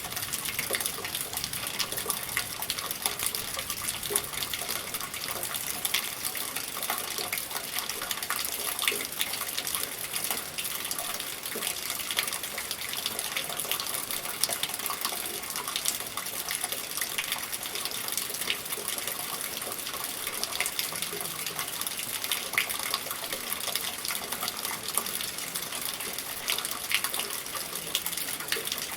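Steady rain falling: a dense even hiss dotted with many separate drop splashes and ticks.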